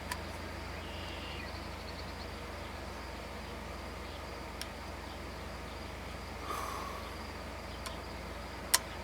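Quiet background with a steady low hum and faint outdoor noise, broken by a single sharp click near the end.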